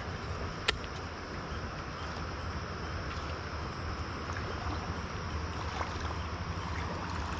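Steady rush of flowing river water around a kayak, with one sharp click about a second in.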